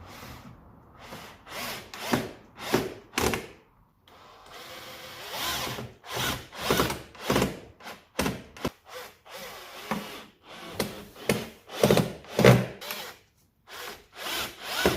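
Tool work on a speaker parcel-shelf board: a series of short rasping strokes, about one or two a second, with brief pauses about four seconds in and again near the end.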